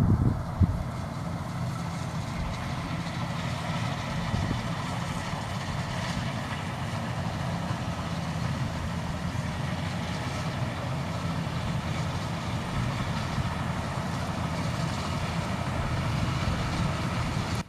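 Maxxi Bimo 102 combine harvester running steadily under load, a constant engine hum with machinery noise. There is a brief low thump in the first second.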